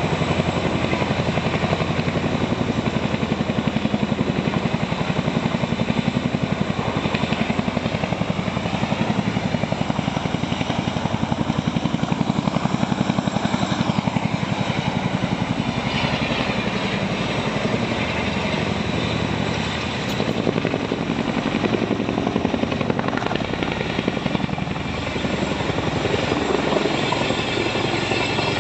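Army helicopter's rotor chopping steadily with a dense engine and turbine sound, loud and close, as it comes in to land.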